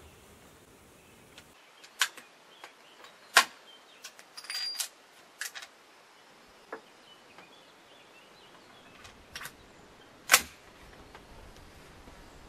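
Wänzl breech-loading rifle being reloaded: a scattered series of sharp metallic clicks and knocks from its breech action and the cartridge handling, the loudest about ten seconds in.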